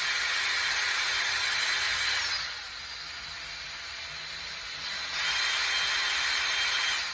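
Power drill running with its attachment pressed against the rusty steel of a small plow, making a loud scraping noise. The noise eases off for about two and a half seconds in the middle, then comes back at full strength and cuts off near the end.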